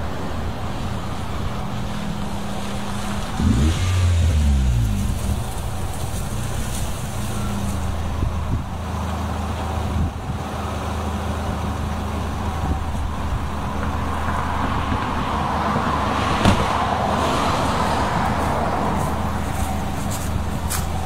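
Nissan Sentra B15's 1.8-litre four-cylinder (QG18DE), breathing through an aftermarket intake filter and a MagnaFlow stainless exhaust with a gutted catalytic converter, heard from outside the car. It runs steadily, with a brief rev that rises and falls about four seconds in, then settles to a steady run. A single sharp knock comes near the end.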